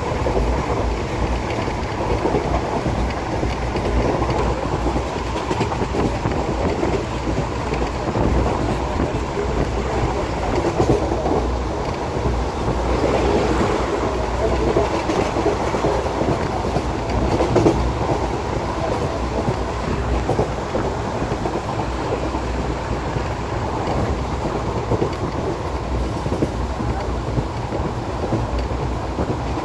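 Passenger train running, heard from inside the coach: a steady rumble of wheels on the track.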